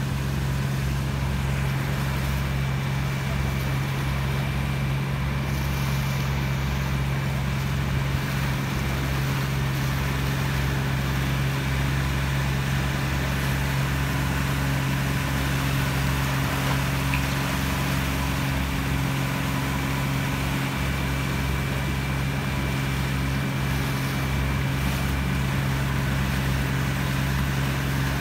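Motorboat engine running at a constant speed with a steady low drone, over the rush of wind and water.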